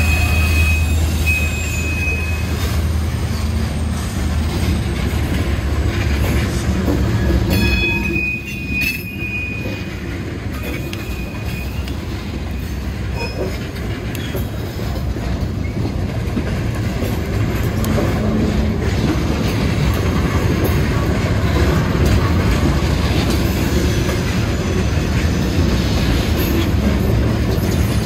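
Norfolk Southern train rolling past with a steady rumble of wheels on the rails and thin, high-pitched wheel squeals near the start and again about eight seconds in.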